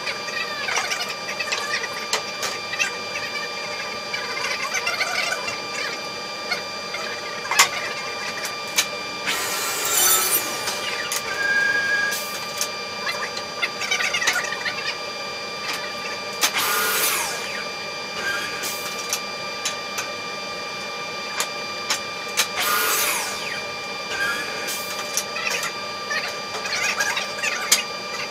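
Woodworking machine running with a steady whine, with knocks and clatter as pieces of wood are handled on its table, and a few louder bursts of machine noise.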